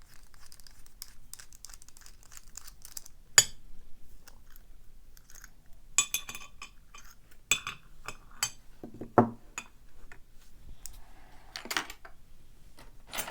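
Small metal clicks and clinks as a brass padlock is taken apart with a Phillips screwdriver and its parts are handled. There is a sharp click a few seconds in, then a handful of louder clinks over the second half.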